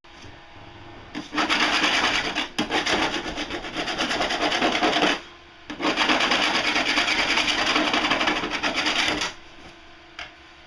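Handheld stainless steel boat scraper rasping rapidly back and forth against a fiberglass hull, in two long bouts: from about a second in to about five seconds, then again from about six to nine seconds.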